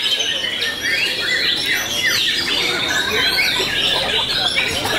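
White-rumped shamas (murai batu) singing, their rapid chirps and whistled sweeps overlapping continuously.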